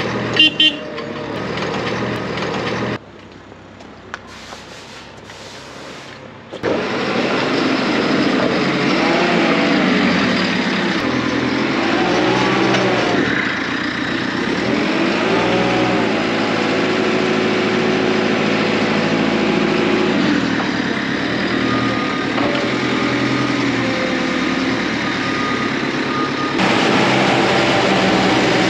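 A few knocks, then about seven seconds in a telehandler's diesel engine comes in loud and runs on, its revs rising and falling.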